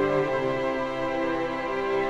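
Background music with slow, held notes.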